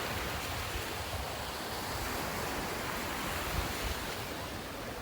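Atlantic surf washing onto a sand beach, a steady rushing noise, with wind rumbling on the microphone.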